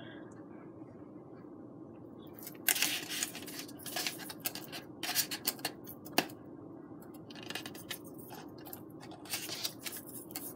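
Faint scratching and rubbing of hands on foamboard while a freshly hot-glued fold is held in place, with one sharp click about six seconds in, over a steady low hum.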